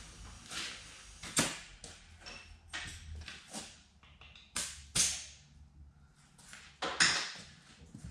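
Metal tire tools clanking against a steel truck wheel rim while the tire bead is pried off by hand: irregular sharp knocks with a ringing tail, about seven of them, the loudest about a second and a half in, around five seconds in and around seven seconds in.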